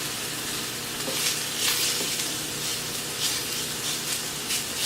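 Sausage frying in a pan, sizzling and going crazy: a steady hiss broken by a few scattered pops of fat.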